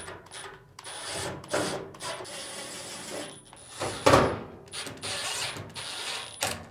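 Screws being driven into the sheet-metal frame of a Samsung dryer with a power driver, the motor whirring in stretches of a second or more with short pauses between screws. There is a louder knock about four seconds in.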